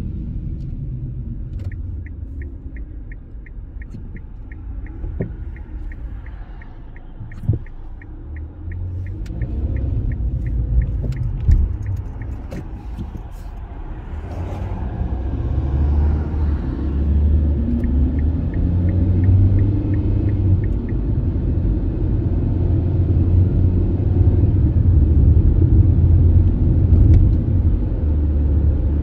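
Car interior: steady low engine and road rumble, growing louder in the second half as the car gathers speed. A turn-signal indicator ticks about three times a second for some ten seconds near the start while the car waits at a stop sign and turns, and again for a few seconds past the middle, with a couple of short knocks in between.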